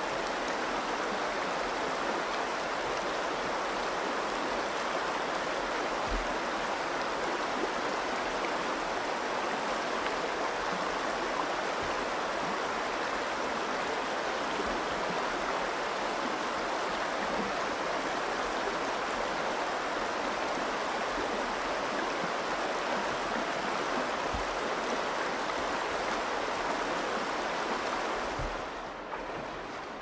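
Shallow river water flowing over a rocky bed, a steady rushing and babbling; about two seconds before the end it turns quieter and duller.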